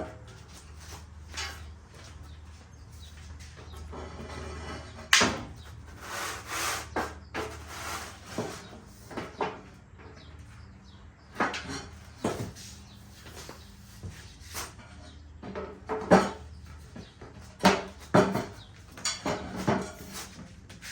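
Outdoor dining table frame pieces knocking and clattering at irregular intervals as they are handled and joined together, with the sharpest knocks about five seconds in and again about sixteen seconds in.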